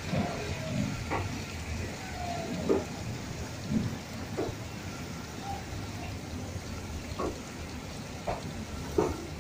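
Water jets of an automatic coach washing plant spraying against the side of a slowly passing passenger coach: a steady hiss of spray over a low rumble, broken by about seven irregular knocks.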